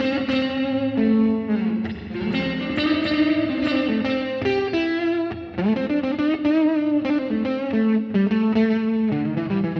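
Overdriven electric guitar playing a blues solo, run through Logic Pro X's Pedalboard plugin: the overdrive pedal gives the main tone, and spring reverb taken from a clean copy of the same signal is blended in. The solo is sustained lead notes with string bends and vibrato.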